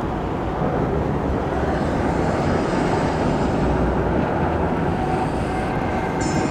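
Steady road noise of a car driving at highway speed, a low rumble of tyres, engine and wind heard from inside the moving car.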